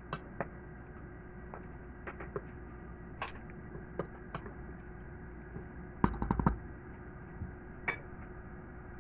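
Spoon clinking and scraping against a stainless steel pot as food is stirred: scattered sharp clicks, with a quick rattle of louder knocks about six seconds in, over a steady hum.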